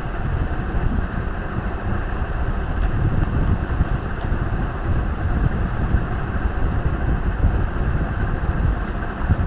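Steady rushing background noise picked up by the microphone, even throughout, with no distinct events.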